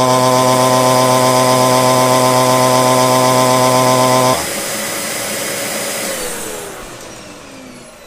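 Vacuum cleaner motor running with a loud, steady hum; about four seconds in the hum stops abruptly and the motor winds down, leaving a rush of air with a slowly falling whine that fades, then cuts off suddenly.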